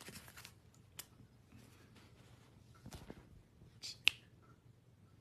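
Faint scattered clicks and taps, with a sharp click about a second in and a louder, sharper one about four seconds in.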